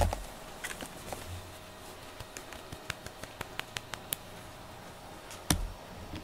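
Close handling noises around a cat in a cardboard box: a soft bump at the start, then a run of light clicks and taps through the middle, and another bump about five and a half seconds in.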